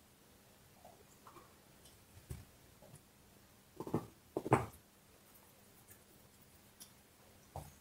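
Dog gnawing a large bone: scattered crunches and clicks of teeth on bone, with a short cluster of louder crunches about four seconds in.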